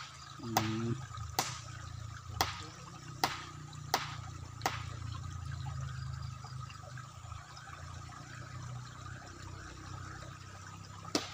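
Steady trickle of river water, with a run of sharp clicks about once a second over the first five seconds and a single click near the end.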